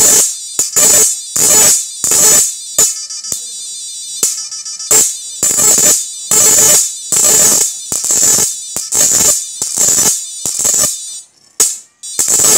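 An electric arc crackles and buzzes in a rapid series of loud bursts, about two a second, as a rod is struck repeatedly against a metal strip fed by a homemade 7000 W IGBT inverter electric fishing machine. A faint high whine from the inverter can be heard between the bursts. The bursts stop briefly near the end.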